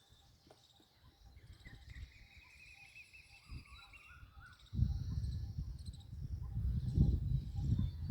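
Insects and birds trilling and chirping in a buzzing chorus. About five seconds in, a loud low rumbling noise starts suddenly and stays the loudest sound.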